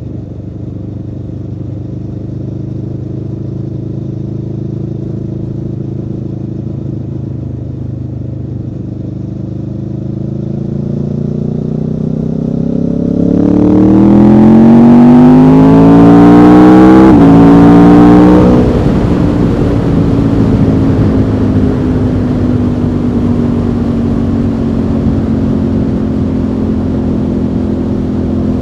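Aprilia Tuono V4 motorcycle's V4 engine, steady cruising at first. About halfway through it accelerates hard, its note climbing quickly with a brief gear change before the throttle shuts off. It then settles to a steady lower note, with wind rushing over the microphone.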